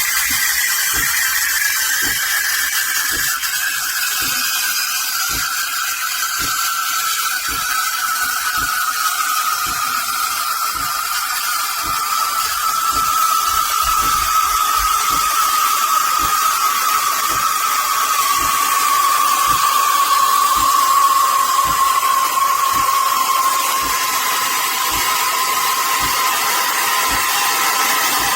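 The Calphalon Temp iQ espresso machine's steam wand is steaming milk: a loud, continuous hiss with a screeching tone that slowly falls in pitch. Soft irregular ticks run underneath.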